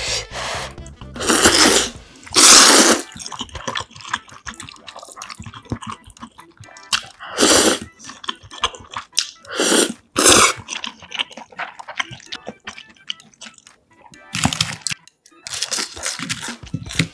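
A person slurping spicy jjamppong instant ramen noodles and chewing them, wet mouth clicks between. There are several long slurps, two close together about a second in, then others in the middle and near the end.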